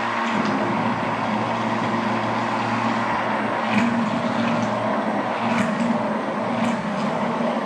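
Immersion blender motor running steadily, its blade down in a glass bowl of thick peanut butter and cherry-preserve sauce, blending out the chunks of preserves.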